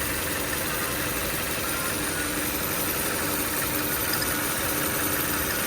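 Chevrolet Cruze engine idling steadily, with faint short whistle-like tones coming and going over the drone; the owner is chasing an odd intermittent chirping noise from the engine.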